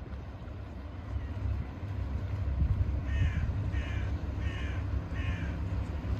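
A crow cawing four times in a row, one call about every 0.7 seconds, in the second half. Under it runs a steady low rumble of wind on the microphone.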